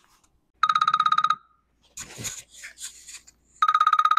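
Electronic telephone ringer trilling: two short rings, each under a second long, about three seconds apart, with a quieter noisy patch between them.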